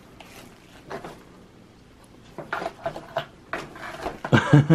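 Crinkly paper packaging rustling in a cardboard box, with a few soft knocks, as a cat noses and rummages inside it. It is faint at first and busier from about halfway. A brief human voice sound comes near the end.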